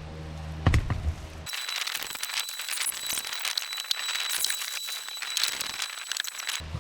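Flexible insulated ductwork crinkling and crackling as it is handled, a dense run of small crackles that starts abruptly about a second and a half in, over a faint steady high whine. Before that, a steady low hum with a single knock.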